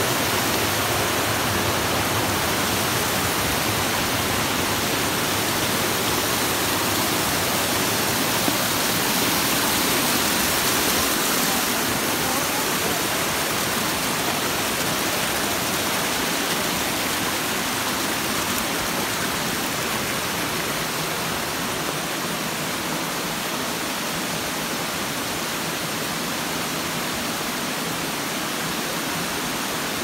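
Mingo Falls waterfall pouring: a steady, unbroken rush of falling water, a little softer in the last ten seconds.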